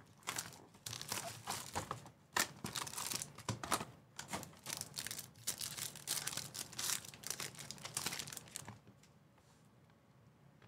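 Plastic wrapping on a Topps Chrome trading-card box and its pack being torn open and crinkled by hand, a run of crackling and ripping that stops about nine seconds in.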